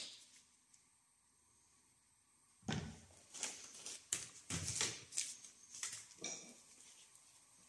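A soft knock as the new shock absorber is set down, then after a pause a run of faint, irregular rustles and light knocks of handling noise.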